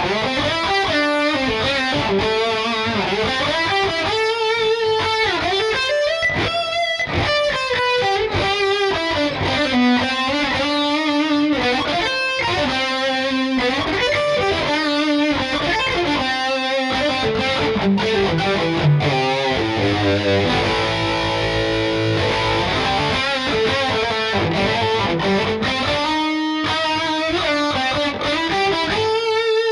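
LTD EC-401FM electric guitar with active pickups played through a distorted tone: melodic single-note lead lines and held notes, with a passage of rapidly repeated chords about two-thirds of the way in.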